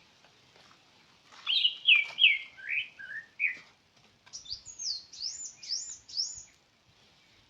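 A bird singing two phrases. The first is a run of chirped notes that step down in pitch; after a short pause comes a quick series of five or six higher, arched whistled notes.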